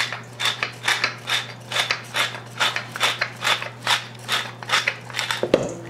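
Hand-twisted pepper mill grinding black peppercorns in a steady ratcheting rhythm, about four grinds a second, stopping near the end.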